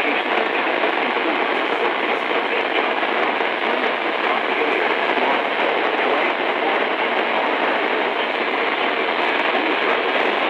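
Steady hiss of radio static from a NOAA weather radio receiver that is not picking up a clear signal.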